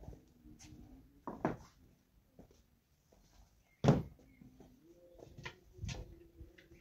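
A shallow metal pan knocking and clattering as it is carried and set down on bare ground, one knock much louder about four seconds in, over a faint steady hum.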